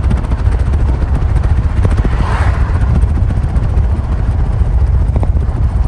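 Moving car's road and wind noise, a loud, heavy rumble with steady hiss over it.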